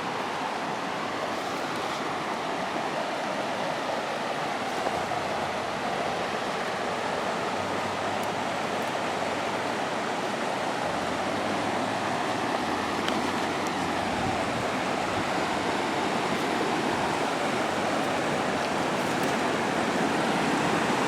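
Rushing river water: a steady hiss of fast-flowing current that grows slightly louder near the end.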